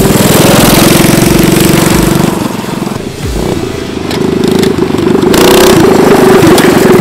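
Small minibike engines running hard at a steady pitch as the bikes ride past on a dirt track. The sound dips about two and a half seconds in and swells back up from about four seconds.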